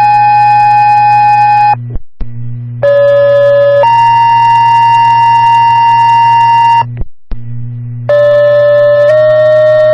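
Fire dispatch two-tone paging tones over scanner radio, alerting stations' pagers for a new call. Steady tones come in pairs, a short tone stepping to a longer one. The first pair ends about two seconds in, a second runs from about three to seven seconds, and a third begins near the end. A low radio hum runs under them.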